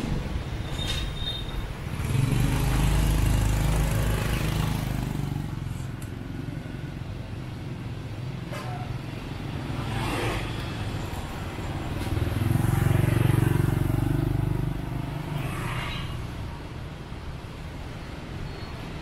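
Motorbike and scooter traffic in a narrow street: small engines running close by, with a low rumble that swells twice, a couple of seconds in and again past the middle.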